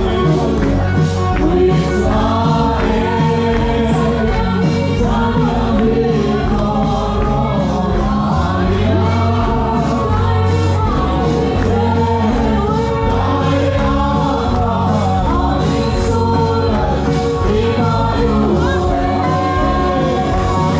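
Gospel song sung by a group of voices with band accompaniment and a steady bass beat.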